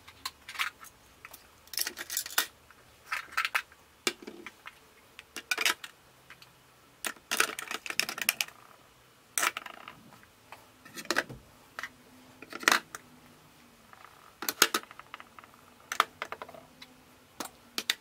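Makeup products (lipstick tubes, compacts, palettes and spray bottles) being set down into a clear plastic makeup organizer: an irregular run of plastic-on-plastic clicks and clatters.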